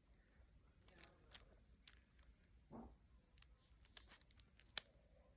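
Near silence with faint scattered clicks and rustles of small plastic fidget toys being handled, and one sharper click about five seconds in.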